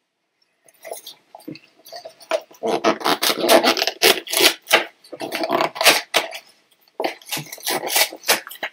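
Plastic candy wrapper crinkling and rustling as it is worked and torn open by hand, a dense irregular crackle that starts about a second in, with a short pause about two-thirds through.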